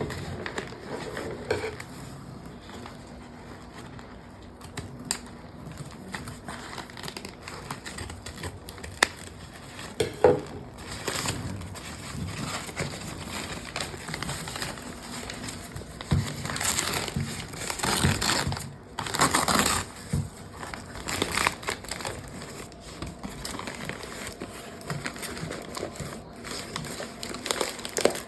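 Packing paper and wrapping crinkling and rustling in irregular bursts as a shipped plant is unwrapped by hand, busiest and loudest in the second half.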